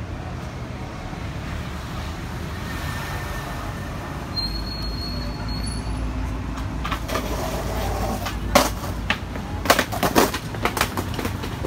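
Skateboard wheels rolling over rough concrete with a steady low rumble, with a brief thin high squeal about four seconds in. From about seven seconds in comes a run of sharp clacks and knocks.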